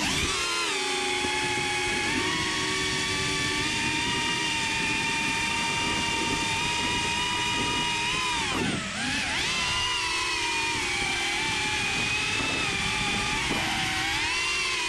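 Small FPV quadcopter's brushless motors whining, heard close up from the craft itself. The pitch holds fairly steady, drops sharply a little past halfway and climbs back, as when the throttle is cut and reopened. A smaller dip and rise comes near the end.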